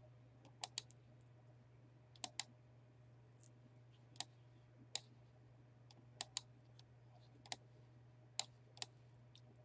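Computer mouse clicking: about a dozen sharp clicks spread irregularly, several in quick double-click pairs, over a faint steady low electrical hum.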